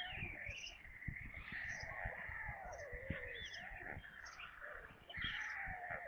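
Birds calling: a short high chirp repeats about once a second over a chorus of warbling, gliding calls. Irregular low knocks and rustles run underneath.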